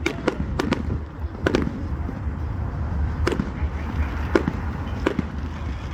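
Fireworks exploding: a run of sharp bangs at uneven intervals, several close together in the first second or two and then more spaced out, over a steady low rumble.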